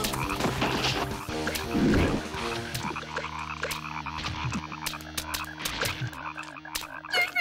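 Many frogs croaking at once, a dense chorus of overlapping croaks, with a louder surge about two seconds in.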